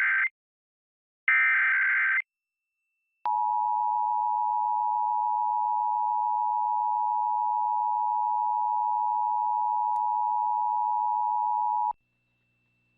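Emergency Alert System test signal: the end of one SAME header data burst and one more short burst of warbling digital tones, then about a second later the EAS two-tone attention signal, a steady tone held for about eight and a half seconds that cuts off sharply.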